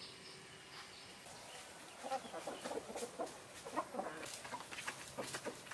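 A flock of domestic chickens clucking while they feed. The calls start about two seconds in and come thick and fast after a quieter stretch.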